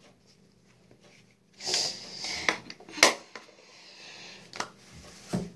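Small handling sounds at a counter: a short breathy rustle, then a sharp click about three seconds in and a few lighter knocks.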